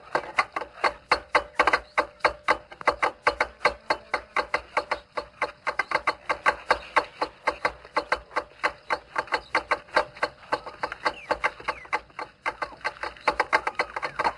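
Rapid, even knocking, about five a second, from food being chopped by hand on a wooden surface.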